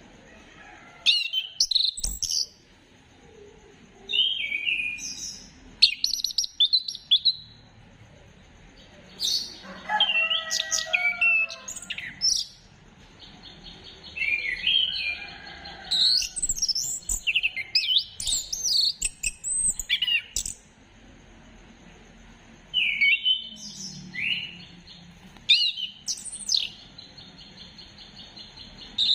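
Chestnut-capped thrush (anis kembang) singing: about five bursts of rapid, varied whistled phrases, with pauses between them. A faint steady high tone runs underneath.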